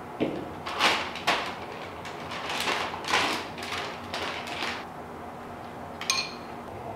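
Dry cereal rustled and poured from its box and plastic liner bag into a bowl: a run of rattling, crinkling pours over the first five seconds. About six seconds in comes a single ringing clink of a metal spoon against the bowl.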